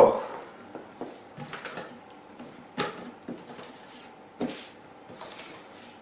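Handling noise from a Miele Complete C3 canister vacuum cleaner being taken out of its box: scattered short knocks and clunks about a second apart, with light rustling between them.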